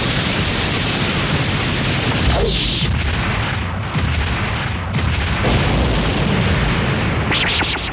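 Animated-battle explosion sound effects: continuous booming blasts and rumble. A brighter burst with a falling sweep comes about two and a half seconds in, and a few sharp cracks come near the end.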